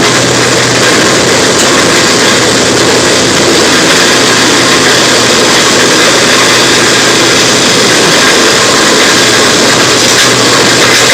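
Large wood chipper running steadily: a loud, even engine drone with a dense noise over it and no breaks.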